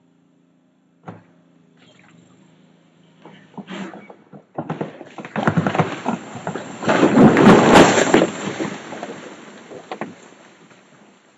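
A large tree coming down onto a house: a few sharp cracks, then a long heavy crash of trunk and branches that is loudest about two-thirds of the way through and dies away over a couple of seconds.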